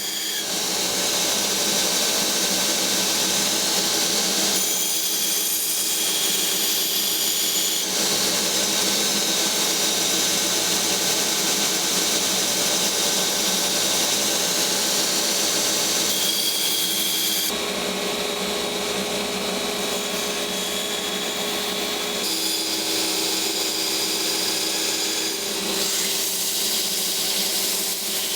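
Electric power grinder running continuously on steel, its sound shifting abruptly several times through the stretch.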